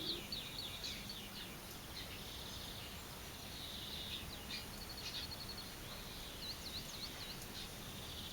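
Songbirds chirping and trilling: quick runs of high repeated notes, with a few short up-and-down chirps near the end, over a steady outdoor hiss.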